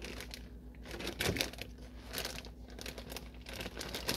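Plastic cheese packaging crinkling and rustling as a hand digs through bags and wrapped blocks, in irregular strokes, the loudest a little over a second in. A low steady hum runs underneath.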